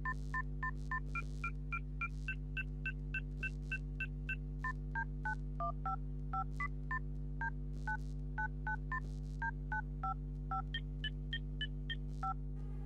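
Touch-tone (DTMF) beeps from a phone's dial pad as keys are tapped in a quick run, about three to four a second. Each beep is a pair of tones, and the pair changes from key to key. A steady low hum runs underneath.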